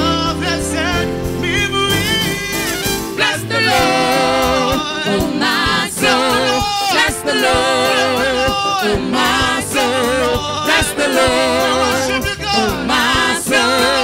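Live gospel song sung by a male solo vocalist into a handheld microphone over band accompaniment. The accompaniment's sustained chords carry the first few seconds, then the voice comes in strongly about three seconds in with long, wavering held notes and runs.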